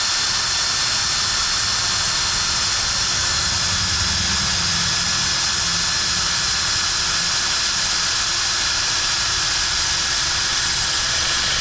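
Power drill running steadily at an even level with a constant whine, boring a hole for the outlet's grounding.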